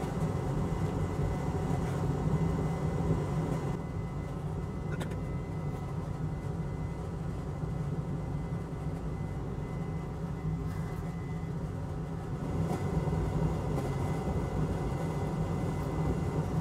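Steady low machine hum of workbench equipment, made of several fixed tones. A faint high tone in it stops about eleven seconds in, and a few faint clicks are scattered through.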